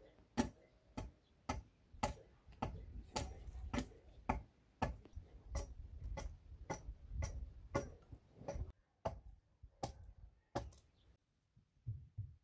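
Small hatchet chopping at an upright wooden pole, trimming it: sharp, even strokes about two a second that stop about eleven seconds in.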